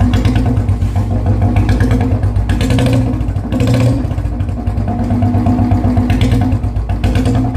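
Royal Enfield Bullet single-cylinder engine running through an aftermarket exhaust silencer with a fast, even thump. The throttle is blipped a couple of times, about three and six seconds in.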